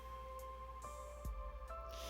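Quiet background music: soft held notes that change a few times, with no speech.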